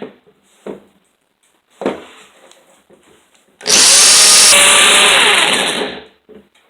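Electric drill spinning a roll-crimp tool against the mouth of a 12-gauge shotshell to fold over a roll crimp. It runs in one loud burst of about two and a half seconds and then stops. Two light knocks come before it.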